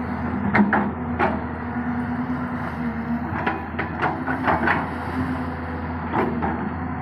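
Excavator diesel engine running steadily, with about nine sharp metallic knocks and clanks from the machine working.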